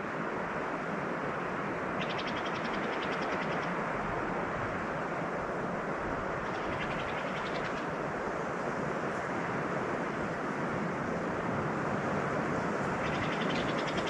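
A steady rushing noise, with a songbird's rapid high trill heard three times, about every five seconds.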